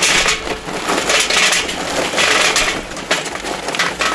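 Charcoal briquettes (B&B oak briquettes) pouring from the bag into a metal chimney starter. They make a continuous rattling clatter that comes in several surges.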